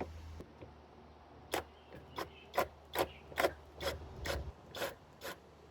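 A metal gutter support bracket being worked loose: a series of about nine short scraping clicks, roughly two a second.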